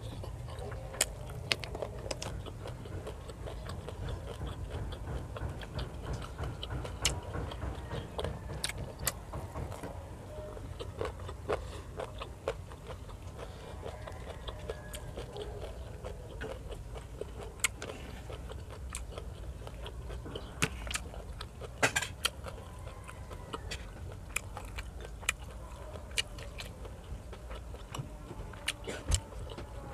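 Close-miked chewing and biting of food, with sharp irregular crunches as raw radish slices are bitten, over a steady low hum.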